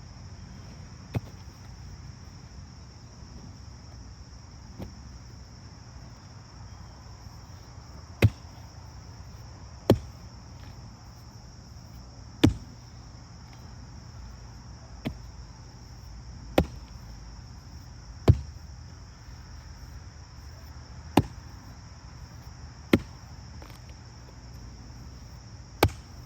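Heavy chopping strikes of a hand tool into dry ground, about ten of them at uneven intervals of one to three seconds. A steady high insect buzz runs underneath.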